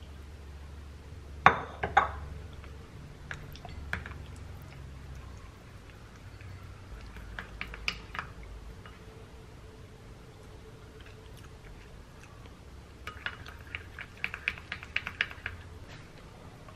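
Kitchenware clinks from a spoon and glass bowls: two sharp clinks about a second and a half in, scattered light taps as a thick sauce is stirred in a small glass bowl, and a quick run of clinks and taps near the end as the sauce is scraped out with a spatula.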